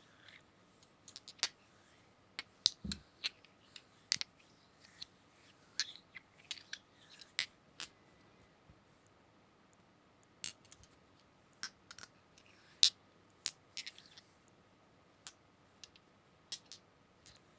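ASMR tapping: irregular light, sharp taps and clicks on hard objects, a few per second with short pauses between them, and one duller, lower knock about three seconds in.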